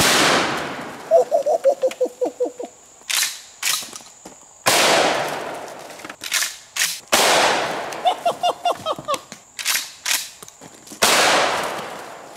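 A 12-gauge shotgun is fired four times, at irregular intervals of about two and a half to five seconds. Each loud blast rings out in a long echoing tail. Short sharp clicks come between the shots.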